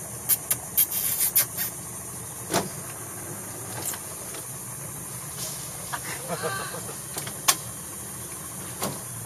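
Idling boat outboard motor with a steady low drone under a high, steady insect hiss. There is a quick cluster of sharp clicks at the start, single clicks and knocks scattered after it, and a brief wavering call about six and a half seconds in.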